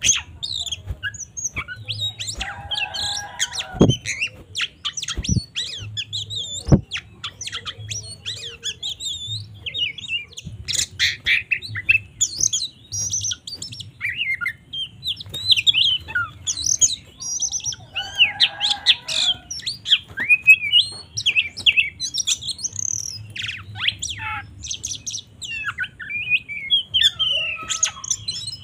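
Oriental magpie-robin (kacer) singing a fast, varied song of chirps and whistled notes in an aggressive 'fighting' mood, broken by harsh rasping calls about three seconds in and again near eighteen seconds.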